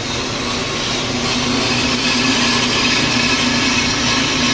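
Ammco brake lathe spinning a brake rotor while its twin cutting bits are fed across the face for a slow finishing cut. A steady machine hum with a higher rushing noise on top, growing louder about a second in as the cut takes hold.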